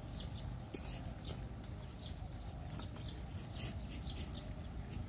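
Small birds chirping in short, scattered high calls over a steady low rumble.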